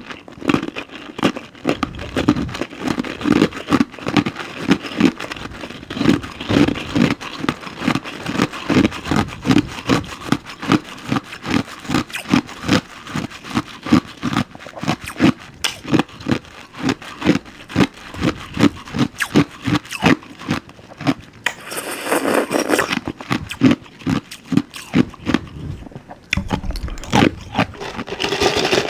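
Close-miked chewing of something crunchy, likely frozen orange-juice ice: a steady run of crunches, about two or three a second. One longer, louder crunch comes a little past two-thirds of the way through.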